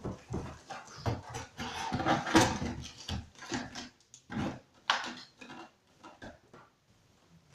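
Cardboard box being handled and folded: irregular rustles, scrapes and soft knocks of the cardboard, fading out near the end.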